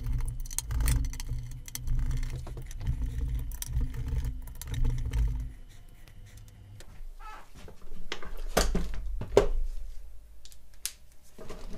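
Hex screws being worked out of the side of a metal amplifier chassis with a hex screwdriver: uneven rattling and small metal clicks for the first half. Near the end come two sharp knocks about a second apart as the chassis is handled.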